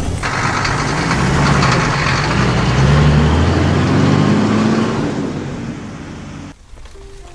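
Vehicle engine sound effect running and revving up and then down, fading and cutting off about six and a half seconds in.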